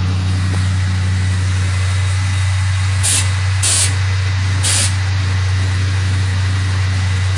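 Pickup truck's air suspension letting out three short hisses of air from its valves about halfway through, each a fraction of a second long, over the truck's engine idling steadily.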